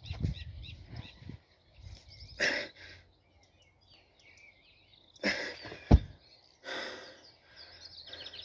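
A stone lifter's hard, noisy exhales, with one short deep thud a little before six seconds in, typical of the heavy stone dropped onto the grass. Small birds chirp in the background.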